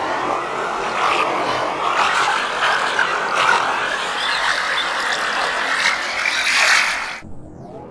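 Computer-processed recording of sea waves: a rushing wash of noise whose brightness swells and dips about once a second and slowly climbs higher. It cuts off abruptly near the end.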